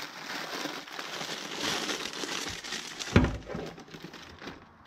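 Packaging crinkling and rustling as items are handled, with one sharp knock a little past three seconds in.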